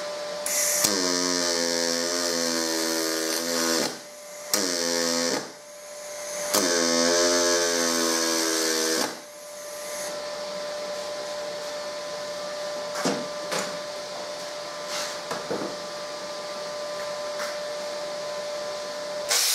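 Pulse MIG brazing with silicon bronze wire on stainless steel plate: three short weld bursts with a steady buzz, about three seconds, one second and two and a half seconds long, filling small gaps around the hinges. Then a steady hum with a few light knocks as the torch is set down, and a grinder starts right at the end.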